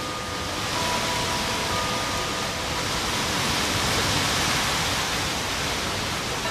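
Distant ocean surf: a steady rushing hiss that swells to a peak in the middle and eases off again. A few faint held tones sound over it.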